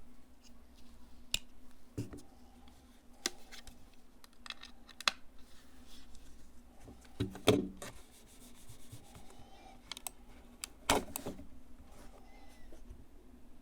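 Small objects being handled on a desk: irregular sharp clicks and taps with light rubbing, and two louder knocks about seven and eleven seconds in.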